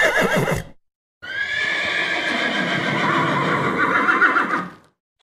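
Horse whinnying twice. The first neigh's pitch falls away and it ends under a second in. After a short pause a long whinny lasts about three and a half seconds and wavers near the end.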